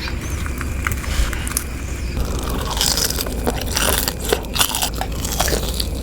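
Close-up biting and chewing of a crispy fried cireng, a tapioca snack, with irregular crunches and crackles.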